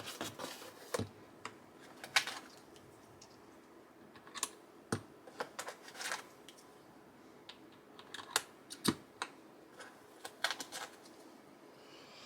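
Keys of a freshly assembled custom mechanical keyboard with linear switches clacking as they are pressed, in scattered irregular clusters with pauses between.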